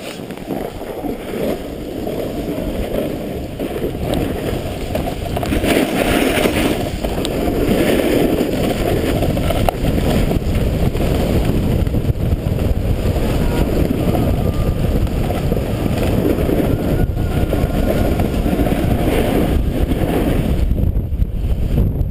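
Snowboard sliding down a groomed piste: the board scraping over packed snow and wind rumbling on the microphone. The noise grows louder over the first several seconds as speed builds, then runs steadily.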